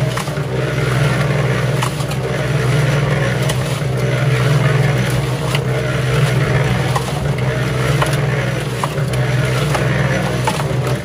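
Harbor Freight electric cement mixer running: a steady motor hum while the turning drum tumbles wet sacked concrete mix, with scattered irregular knocks and scrapes as clumps fall off the paddles.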